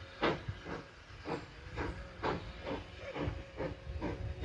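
Steam locomotive chuffing, its exhaust beats coming evenly at about two a second over a low rumble.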